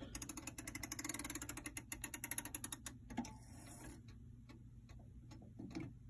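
Rimbault bracket clock being wound with its crank key: the winding ratchet clicks rapidly for about three seconds, then slower, sparser clicks follow.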